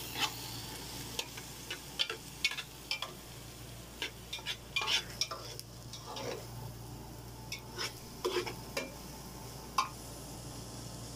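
Diced onions and garlic sizzling in hot oil in an aluminium pot while a spoon stirs them, with irregular scrapes and clinks against the pot.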